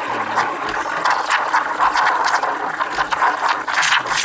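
DeLonghi Magnifica espresso machine's steam wand frothing milk in a jug: a steady hiss with irregular spluttering crackles.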